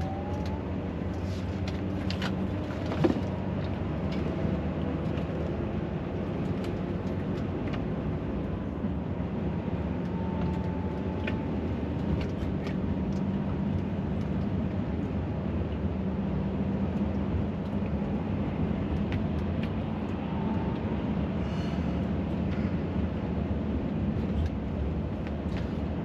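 Lorry engine and road noise heard inside the cab while cruising at steady speed: a steady low drone with tyre hiss. A single sharp click comes about three seconds in.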